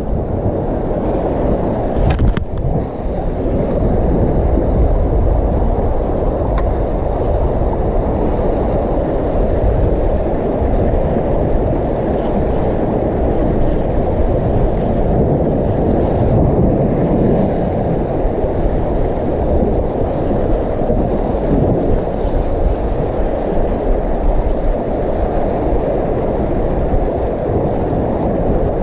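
Steady wind rumble on the microphone mixed with the wash of sea swell against a rock cliff, with a single knock about two seconds in.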